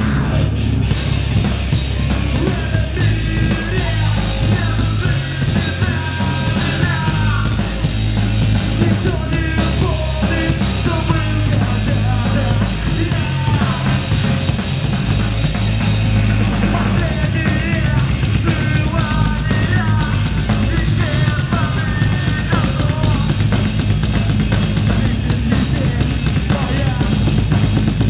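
A rock band playing live, loud and continuous: drum kit, guitars and bass, with a melody line that may be singing carried over the top.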